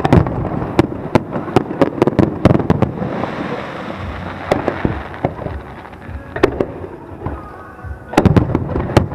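Aerial fireworks bursting in rapid volleys of sharp bangs, with a dense crackle in the middle and a fresh cluster of bangs near the end.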